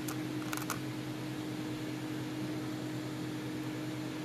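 Steady room tone: a constant hum with one steady tone and a hiss, with a couple of faint light clicks in the first second.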